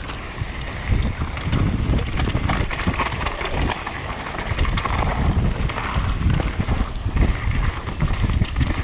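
Mountain bike riding fast down a dirt singletrack: tyres running over dirt and loose stones, with frequent knocks and rattles from the bike over bumps, and wind rumbling on the microphone.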